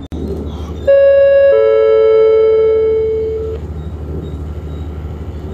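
Two-tone passenger-information chime on a regional train: a higher tone about a second in, then a lower one half a second later, both ringing out over about two seconds, the gong that comes before a next-stop announcement. The train's steady low rumble runs underneath.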